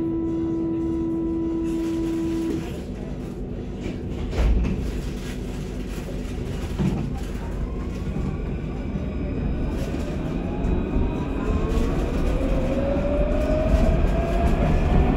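Luas light-rail tram running along its track, heard from inside the car: a steady rumble of wheels on rail. A steady tone sounds for the first two and a half seconds, a low thump comes about four seconds in, and over the second half an electric motor whine rises in pitch as the sound grows louder.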